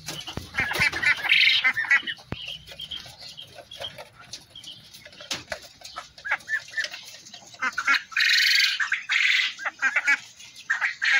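Caged poultry calling: many short, high calls, with two longer, loud, harsh bursts about eight and nine seconds in.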